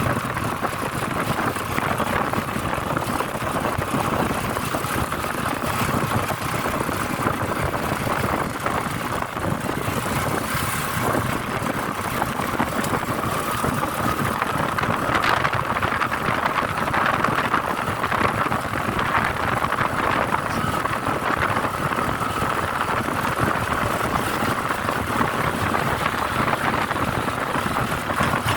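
Steady engine and road noise of a moving vehicle, with a faint tone that edges up in pitch about halfway through.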